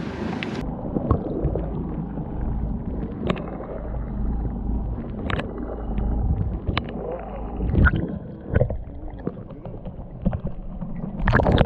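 Muffled water sloshing and gurgling against a boat, with a steady low rumble and several sharp knocks scattered through, the loudest near the end.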